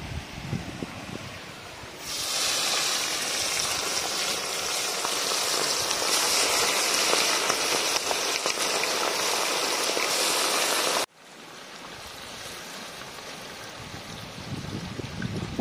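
Marinated fish pieces deep-frying in hot oil in an iron kadai: a loud, steady sizzle that starts suddenly about two seconds in. It cuts off abruptly about eleven seconds in and gives way to a quieter sizzle, with a stream running beneath throughout.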